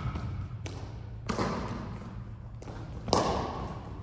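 A basketball bouncing three separate times on a hardwood gym floor, each thud trailing off in the large hall.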